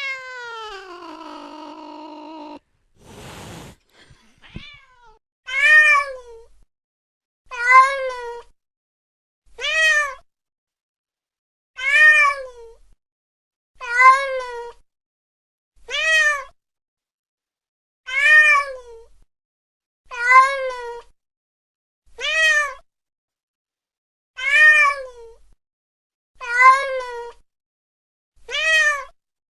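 Domestic cat meowing: one long meow falling in pitch at the start, a short noisy burst, then the same short rising-and-falling meow repeated about every two seconds, twelve times.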